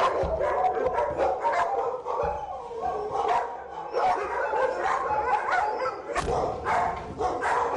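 Several dogs barking at once, their calls overlapping and wavering up and down in pitch.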